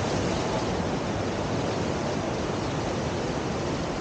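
Steady rush of river whitewater pouring through a standing surf wave.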